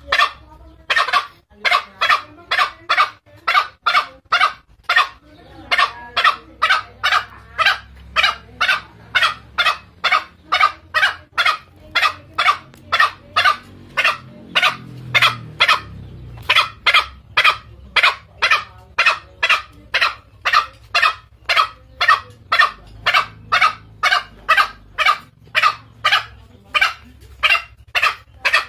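Green junglefowl calling in long runs of short, hoarse notes, about two to three a second, with brief breaks about five seconds in and again around the middle. It is a call that draws in male junglefowl to fight.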